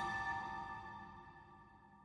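Closing background music: a few held notes fading out steadily.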